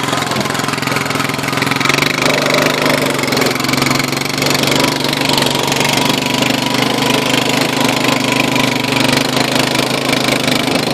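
Honda FourTrax 4x2 ATV's single-cylinder engine running steadily at an even pitch.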